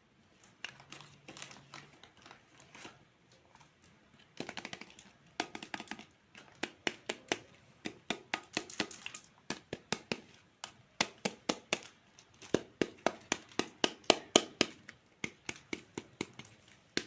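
Plastic toy fruit being cut with a toy knife: sharp clicks and taps, scattered at first, then coming about three a second in short runs.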